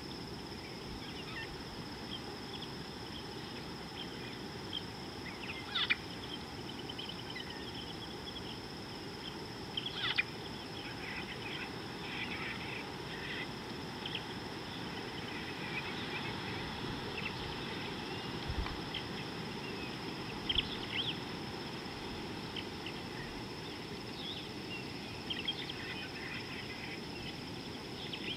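Natural bush ambience: a steady high insect drone and a low steady hiss, with birds chirping on and off. The loudest short calls come about six, ten and twenty-one seconds in.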